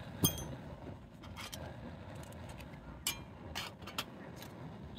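A scatter of sharp clinks and knocks of small hard objects. The loudest comes about a quarter of a second in, with several lighter ones spread through the rest.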